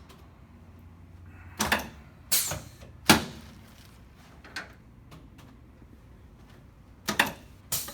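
Spinal adjustment thrusts on the back of a patient lying face down, with the chiropractic table: a series of short sharp knocks and cracks, a quick pair nearly two seconds in, two more single ones over the next second and a half, a faint one midway and another quick pair near the end.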